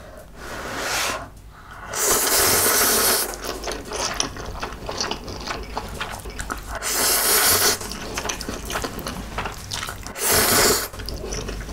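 Noodles being slurped up from chopsticks three times, long and loud, with wet chewing between the slurps.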